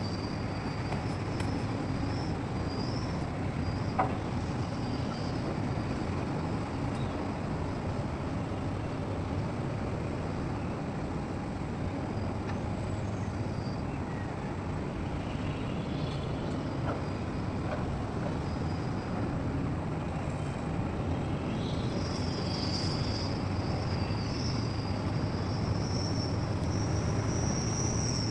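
Heavy diesel earthmoving machinery running steadily with a constant low engine drone. A single sharp click comes about four seconds in, and a thin high whine comes in about three quarters of the way through and holds.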